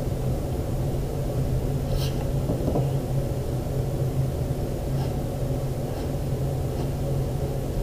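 A steady low hum runs throughout, with faint pencil and eraser sounds on paper and a few small taps.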